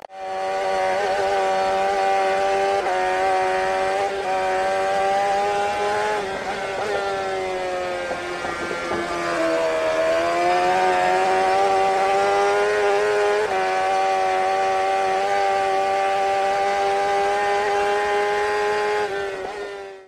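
An engine running at steady revs, its pitch sagging a little about midway and then climbing back, fading out at the end.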